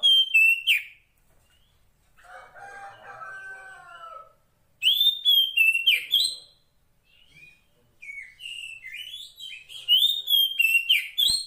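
Female Oriental magpie-robin of the white-bellied 'kacer poci' form calling to males: three bursts of loud, sharp, quickly gliding whistled notes, at the start, about five seconds in and from about eight seconds in. About two seconds in comes a quieter, lower call of several falling tones.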